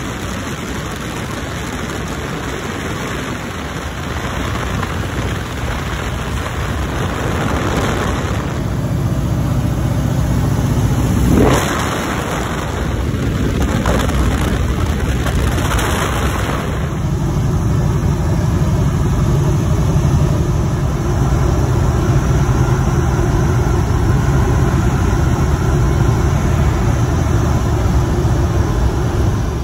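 Open-cockpit biplane in flight: the radial engine and propeller drone under a heavy rush of wind buffeting the microphone. The low engine hum grows stronger and steadier in the second half, with one brief louder swoosh a little over a third of the way in.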